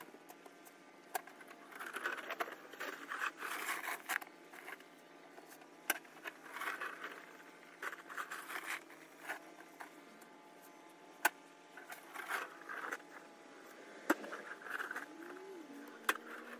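Snow shovel scraping across snow in repeated strokes, about one every second or two, with a few sharp knocks in between.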